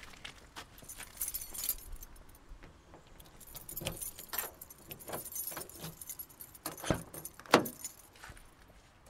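A bunch of car keys jangling in hand, in two spells, with scattered clicks and a sharp thunk about seven and a half seconds in, the loudest sound, as the car door is worked.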